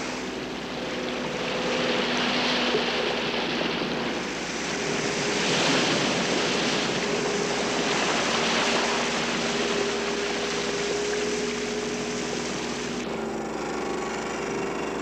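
Sea water washing in waves, the rush swelling and easing every few seconds, over faint steady low tones.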